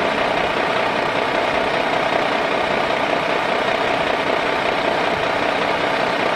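Light two-bladed helicopters hovering and flying low: a steady, loud engine and rotor noise with a faint steady tone in it.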